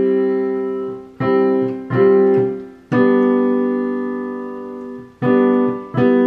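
Digital piano played slowly: a series of chords, each struck and left to ring and fade, with one held for about two seconds in the middle.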